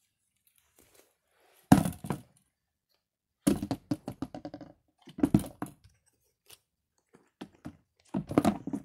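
Silicone pop-it fidget toys being dropped and tossed into a clear plastic storage bin: four bursts of thunks and clatter with short quiet gaps between.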